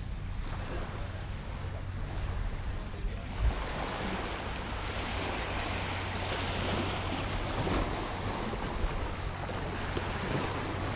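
Small waves washing onto a sandy beach, with wind rumbling on the microphone. The wash swells from a single bump about three and a half seconds in.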